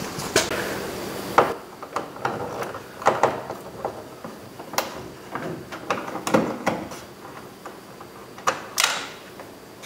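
A Phillips screwdriver backing a screw out of a plastic interior door panel, with scattered, irregular small clicks and ticks.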